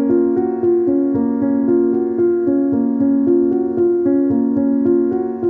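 Piano playing a melody, single notes changing a few times a second over a held low note.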